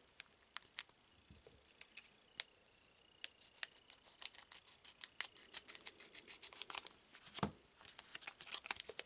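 Scissors cutting open the foil wrapper of a trading-card booster pack: a run of small sharp snips and clicks that comes thicker in the second half, with a single heavier thump about seven seconds in.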